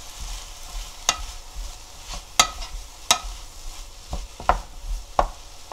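Julienned potato and dried pollack stir-frying in sesame oil, a soft steady sizzle, while a wooden spatula stirs and knocks sharply against the pot about six times.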